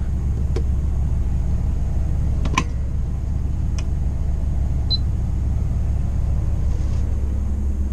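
Motorhome engine idling with a steady low rumble. A few light clicks and one short high beep about five seconds in.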